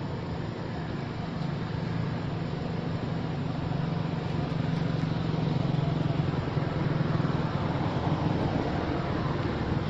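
Steady low rumble with a broad noisy hiss over it, growing a little louder in the middle.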